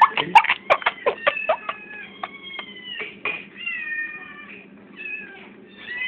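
Cat meowing from a video playing on a computer: a quick run of short, high meows, then several longer, drawn-out meows.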